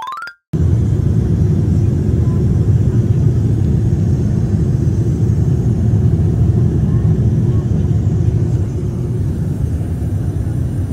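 Jet airliner cabin noise in flight: a loud, steady low rumble, easing slightly near the end. It comes in just after a short rising tone at the very start.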